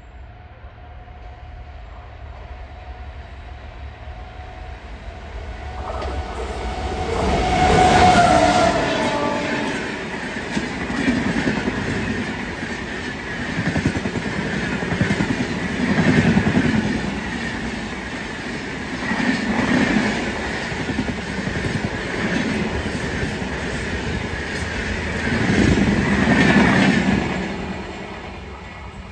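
Rajdhani Express passing at speed: the rumble builds to its loudest as the front of the train goes by about eight seconds in, with a brief tone that drops slightly in pitch, then the coaches' wheels clatter over the rails in repeated surges and fade near the end.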